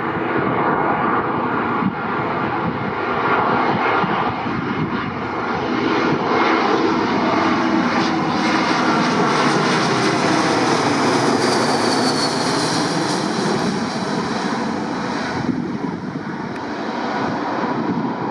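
Airbus A320-232's IAE V2500 turbofan engines on landing approach, passing low overhead. The jet noise swells as the airliner nears, is loudest about ten seconds in as it flies over, with a high whine that falls in pitch, then eases off as it moves away.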